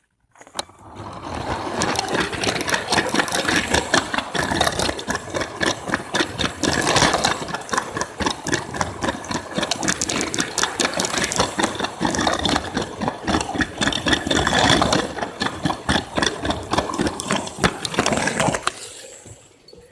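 Motorised Lego train running along plastic track: a motor whir under a fast, continuous clatter of wheels and track clicks, starting just after the beginning and fading out near the end.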